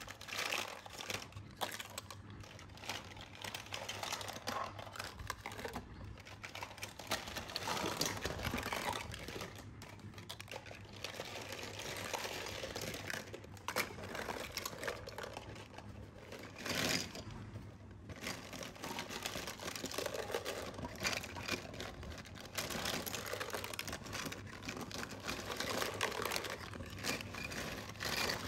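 Small plastic toy kitchenware and play-food pieces clattering against each other as hands rummage through them in a plastic basket: a steady run of light clicks and knocks.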